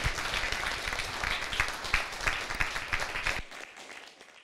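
Audience applauding, many hands clapping, fading away near the end.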